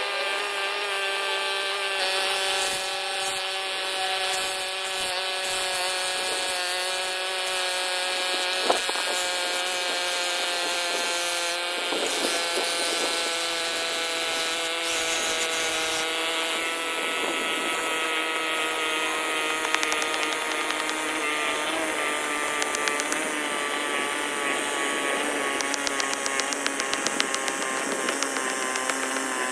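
A 4-inch angle grinder running steadily while scoring a cut line in the pavement, its motor whine sagging slowly in pitch under load over a gritty hiss, with a few small ticks near the end.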